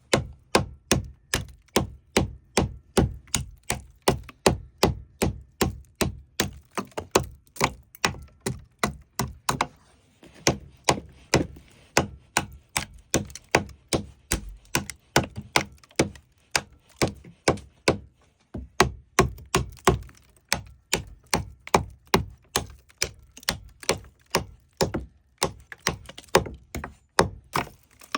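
Rhythmic striking blows, about two to three a second, each sharp and short, with brief breaks near ten and eighteen seconds in.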